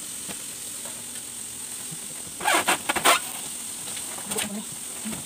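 Rustling and crinkling of a cardboard grocery box and its plastic packing strap and packaging being handled. There is a short loud cluster about two and a half to three seconds in and a smaller burst near four and a half seconds, over a faint steady hiss.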